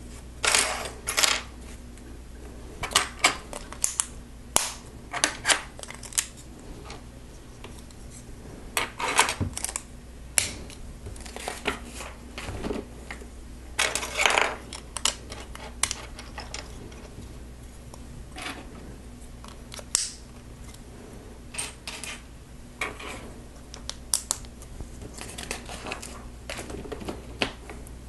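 Plastic Lego bricks and plates handled and pressed together by hand, with irregular clicks and clatters of pieces on a table.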